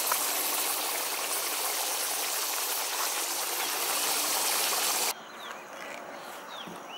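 Goat leg sizzling in hot oil and its own juices in a pot, a dense steady hiss. It cuts off suddenly about five seconds in, leaving a quiet background with a few short bird chirps.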